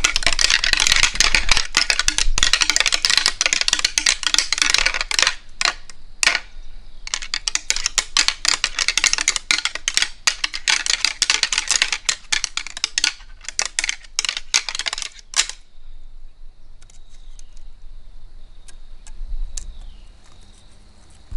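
Rattling antlers clashed and ground together in fast clicking, clacking bouts, imitating two whitetail bucks sparring to call in a buck. The rattling runs in two long bouts with a short break about five seconds in, and stops about fifteen seconds in, leaving only a few scattered clicks.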